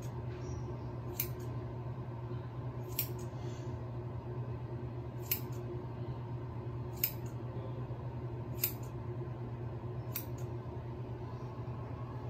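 Scissors snipping through hair, six sharp cuts spaced a second or two apart, over a steady low hum.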